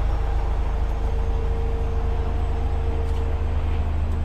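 Isuzu Giga FVZ dump truck's diesel engine idling: a steady low rumble with an even mid-pitched hum over it.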